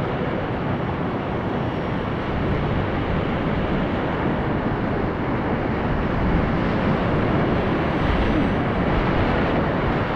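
Rushing whitewater of river rapids: a steady, loud wash of churning water, growing slightly louder in the second half.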